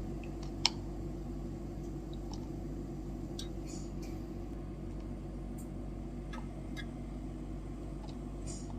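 A steady low machine hum from the running equipment, with a few light clicks and taps of parts and containers being handled; the sharpest click comes within the first second.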